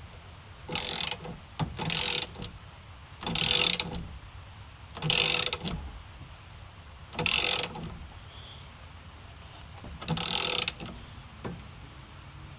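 Socket ratchet wrench clicking in six short bursts, one to three seconds apart, as the steering wheel's main centre nut is tightened down.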